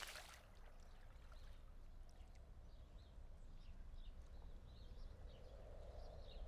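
Near silence: quiet outdoor film ambience, a low rumble with faint scattered high chirps and a faint drone that swells a little after the middle.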